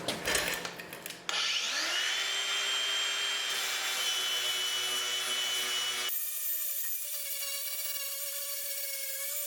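Power sanding tool spinning up and then sanding the damaged sheet-metal fender down to bare metal, a steady abrasive whine. Before it starts there are a few handling knocks, and its sound changes abruptly about six seconds in.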